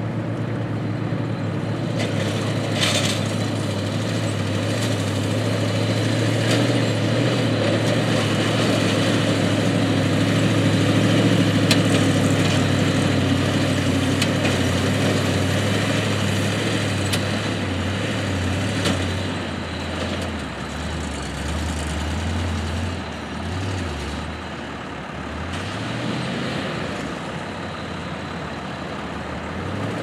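The engine of a New Holland 1069 self-propelled automatic bale wagon running steadily as the machine drives across the field. Its low engine note drops and wavers for the last third, with a few faint clicks.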